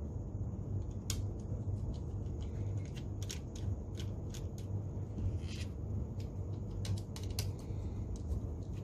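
Scattered small clicks and taps of a DJI Spark remote controller's plastic casing and small parts being handled during disassembly, over a steady low hum.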